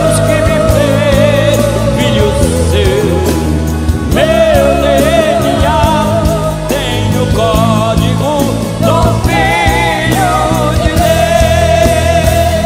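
Gospel worship song: a lead voice holding long notes with wide vibrato over a steady band accompaniment.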